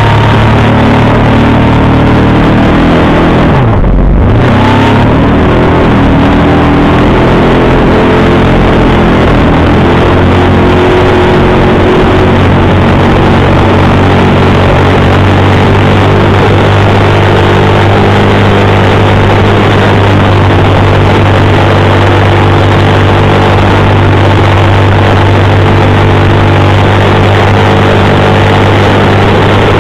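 Outboard motor running at speed under a rush of water spray, loud and steady. About four seconds in, the engine's pitch drops sharply and climbs straight back, then holds steady.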